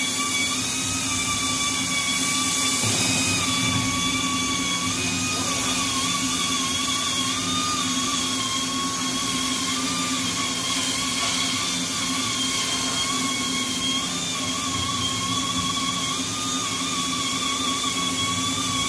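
Makino A77 horizontal machining center running with its spindle turning, a steady whine made of a few high tones that waver slightly, over a low hum.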